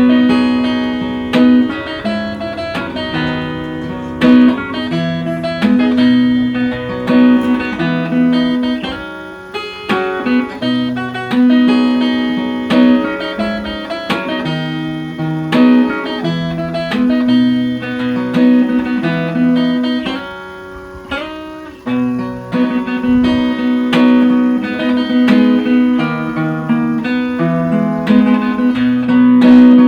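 Instrumental guitar music: plucked notes over a stepping bass line, playing continuously.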